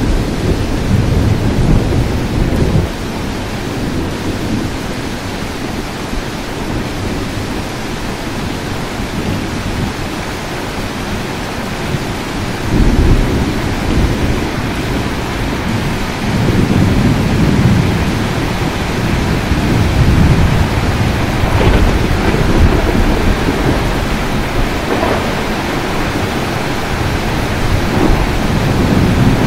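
Steady rain with rolling thunder. A low rumble at the start fades about three seconds in. The thunder swells up suddenly about halfway through and rolls on and off until the end.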